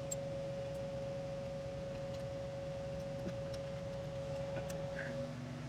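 Steady background hum with a constant mid-pitched tone, and a few faint light clicks of small metal parts, bolts and shim washers, being handled while a brake caliper is fitted to its bracket.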